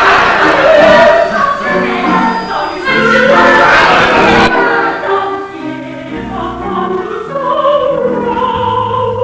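Several voices singing a stage-musical number together, with musical accompaniment. About four and a half seconds in, the sound turns duller as the treble drops out.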